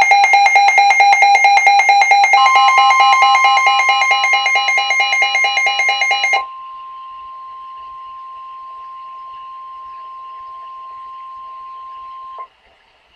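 Emergency alert attention signal: a loud, rapidly pulsing electronic chime of several tones, joined about two seconds in by a steady single tone near 1 kHz, the weather-radio warning alarm tone. The chime stops after about six seconds; the steady tone carries on more quietly over a faint hiss and cuts off suddenly shortly before the end.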